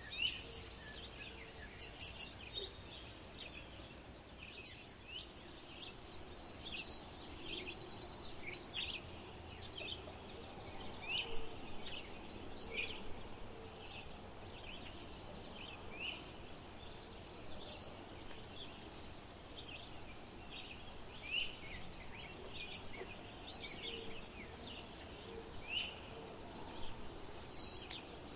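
Outdoor ambience of small birds chirping: short, sharp high calls repeating about once a second, with a few higher swooping calls and some brief buzzy trills in the first few seconds.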